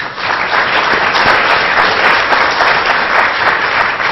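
Loud, steady audience applause.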